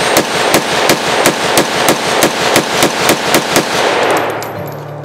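M+M M10X Elite AK-pattern semi-automatic rifle in 7.62x39mm fired rapidly, about three shots a second, a string of about a dozen shots each followed by echo. The firing stops about three and a half seconds in and the echo dies away.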